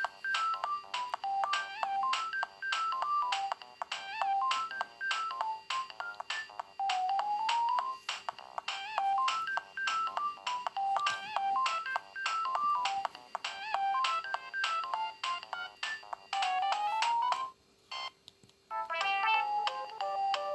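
Siemens A51 mobile phone ringtone playing: a quick melody of short electronic notes whose phrase ends in a rising glide, heard twice through. It stops about three-quarters of the way through, and after a brief pause a different ringtone begins.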